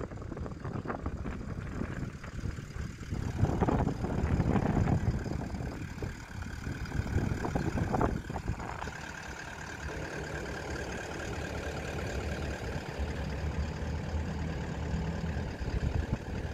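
Gusty wind buffeting the microphone through the first half, with one sharp knock about eight seconds in, then a steadier, lower hum.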